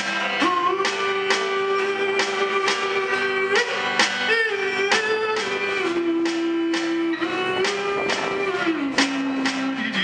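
Country band playing live: acoustic guitars strumming a steady beat with upright bass and fiddle, while the male lead singer holds long wordless notes that step up and down in pitch.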